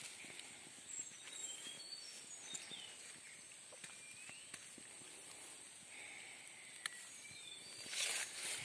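Faint woodland ambience: a steady high-pitched hiss with scattered short high chirps and a few light clicks, and leaves and twigs rustling near the end as the phone is pushed through the branches.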